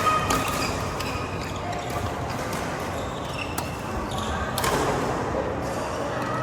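Badminton rally: sharp smacks of rackets striking the shuttlecock, irregularly about a second apart, with brief squeaks from shoes on the court and voices in the background.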